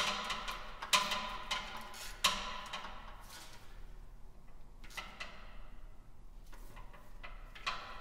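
Small hand ratchet clicking in quick runs, with a few louder metallic knocks, as the crankshaft position sensor's bolt is tightened. The clicks come several a second at first and thin out to scattered ticks after about two and a half seconds.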